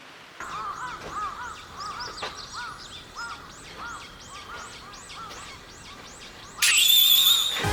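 An animal calling in a fast series of short rising-and-falling notes, about three a second. About a second before the end, a much louder high-pitched steady sound starts.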